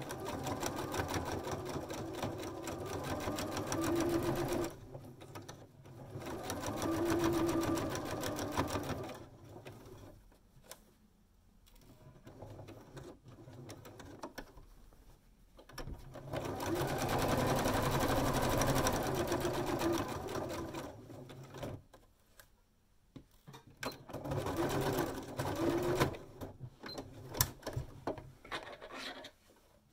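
Electric domestic sewing machine stitching fabric in four runs of a few seconds each, stopping and starting again between them, with a few sharp clicks near the end.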